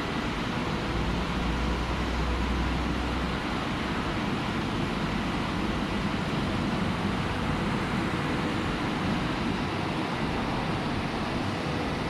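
Automatic touchless car wash machine at work: a steady rush of high-pressure water spray over the hum of its pump and motors, with a faint steady whine.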